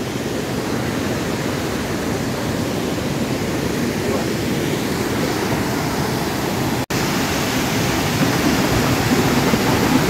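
Steady rush of fast river rapids and a waterfall, cut off for an instant about seven seconds in.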